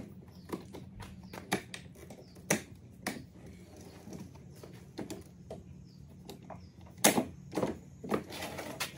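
Clicks and knocks from a Ryobi 40-volt cordless push mower's folding handle and its clamps being worked, plastic and metal parts clattering, with a few louder knocks near the end as the mower is handled into its upright storage position.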